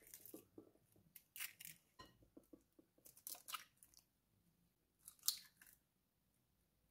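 Eggs being cracked and their shells pulled apart over a glass mixing bowl: faint crackling clicks in a few short bursts, the sharpest about five seconds in.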